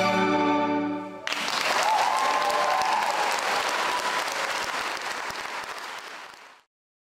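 A string orchestra of violins and cellos holds its final chord, which stops about a second in; the audience then breaks into applause, which slowly fades and cuts off near the end.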